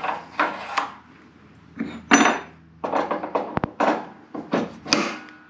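Steel snowblower drive pulleys being slid onto a Predator 305cc engine's crankshaft and handled: a string of sharp metal clinks and clanks, some with a short ring.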